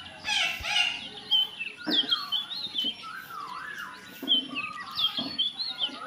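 Parakeets chirping and squawking in short notes that slide up and down in pitch, one call after another.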